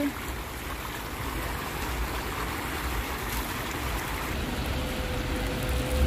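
Plaza fountain's small bubbler jets splashing steadily into the basin, a continuous rush of falling water.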